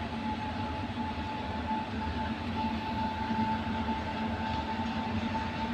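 Indian Railways WAG-9 electric locomotive running past: a steady electric whine and hum over the low rumble of wheels on rail.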